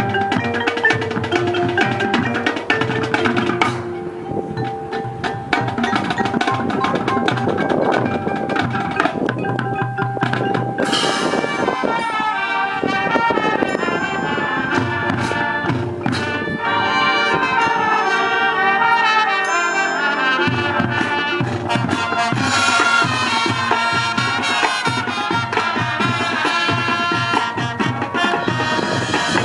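Band music with brass, drums and mallet percussion, filling out and getting brighter partway through.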